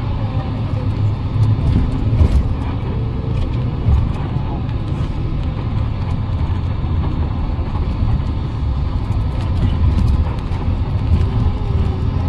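Steady low engine rumble that does not change, with faint voices in the background.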